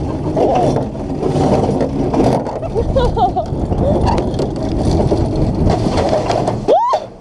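Steady rumbling ride noise on board a suspended amusement-park ride, wheels running along the overhead track with wind on the microphone. Riders' voices sound over it from about three seconds in.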